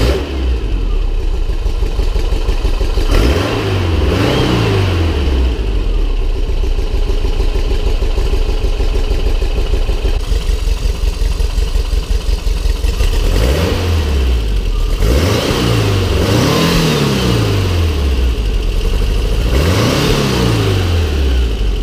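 Rebuilt 2.1-litre Type 4 air-cooled flat-four, with dual Dellorto 40 carburettors and a stainless steel exhaust, running at idle. The throttle is blipped several times, so the revs rise and fall briefly, once early and three or four times in the second half.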